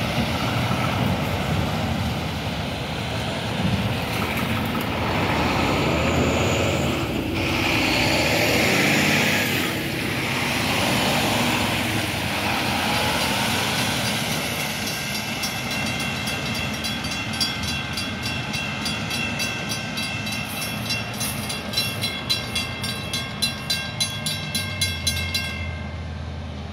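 Heavy dump trucks drive over the railroad crossing on wet pavement. About halfway through, the Western Cullen Hayes mechanical crossing bells start ringing fast and evenly, about three strokes a second, and the nearer bell sounds a little rough. The bells stop near the end as the gates finish lowering.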